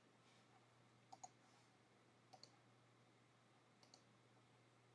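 Faint clicks of a computer mouse button, three quick press-and-release pairs about a second and a half apart.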